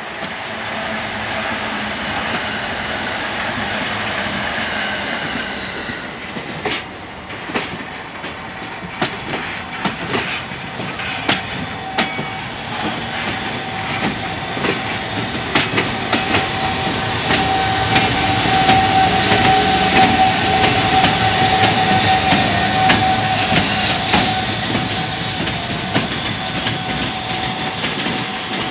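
Freight train running past over rail joints: a rising rumble, then a long run of sharp wheel clicks at the joints. A steady whine joins about two-thirds of the way in.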